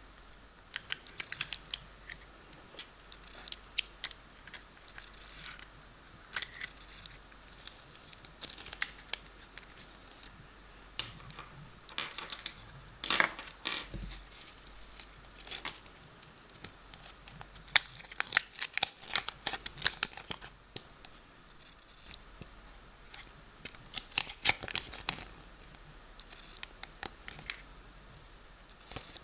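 Small plastic parts from a Kinder Surprise toy capsule and its folded paper leaflet handled by hand: irregular bursts of paper crinkling and rustling with sharp little plastic clicks.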